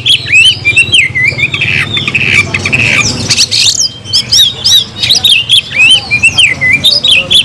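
Oriental magpie-robin (kacer) singing loudly in full voice: a fast, unbroken run of varied whistled notes mixed with harsh, scratchy ones. It is the challenging song of a bird in top form, calling out a rival.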